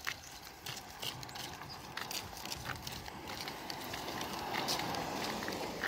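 A Jeep Wrangler driving past close by, its tyre and engine noise building to a peak about three-quarters of the way through, with scattered sharp clicks throughout.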